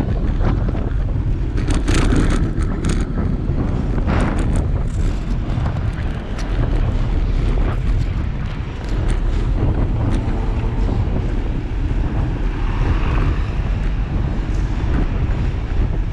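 Wind rumbling on the microphone of an action camera mounted on a moving bicycle, over city street traffic. A few sharp clicks and rattles come between about two and five seconds in.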